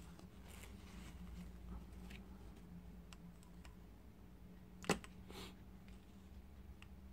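Quiet handling sounds on a workbench over a low steady hum: faint ticks and rustles, then one sharp click about five seconds in, followed by a short rustle.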